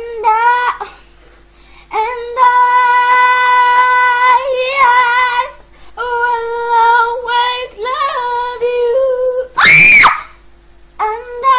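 A young girl singing long, steady held notes without accompaniment. A short, very high, loud shriek comes about ten seconds in.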